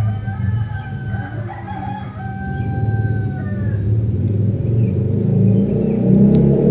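A drawn-out animal call in several parts, ending in a long held note about halfway through, over a low motor-vehicle engine rumble that grows louder toward the end as the vehicle approaches.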